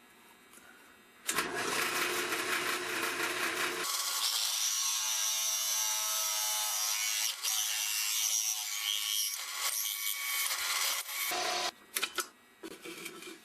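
Drill press drilling a hole into a cupboard-door handle, running steadily for about ten seconds from about a second in and stopping near the end; the drilling leaves the part hot.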